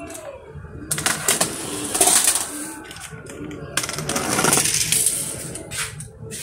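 Toy cars rattling as they roll down a plastic ramp and clatter onto concrete, in uneven bursts starting about a second in.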